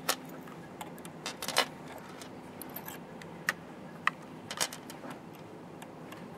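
Scattered small clicks and taps of a plastic free-motion foot and its screw being fitted and tightened onto a sewing machine's presser bar, a handful of separate sharp ticks about a second apart.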